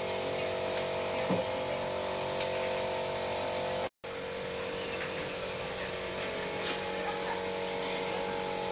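A small electric motor whining steadily at one even pitch, over faint room chatter; the sound cuts out completely for an instant a little before halfway.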